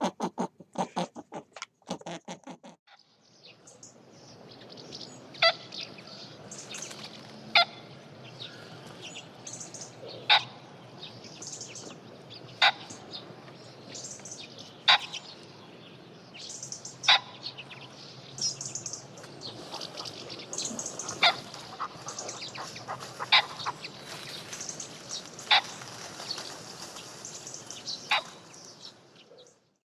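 About the first three seconds are a rapid patter of short pulses, roughly eight a second, that stops abruptly. After that come birds in a pheasant aviary: faint high chirps and peeps, with a sharp short click recurring about every two seconds.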